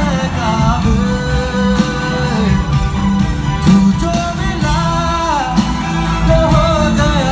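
Live rock band playing a song: a man singing a gliding melody over acoustic and electric guitars and drums, recorded from the audience.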